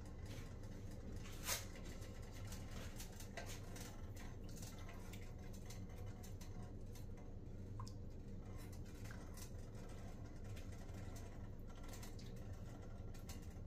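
Faint patter and small clicks as clumps of enoki mushroom are pulled apart by hand and dropped into a pot of broth, over a low steady hum, with one sharper click about a second and a half in.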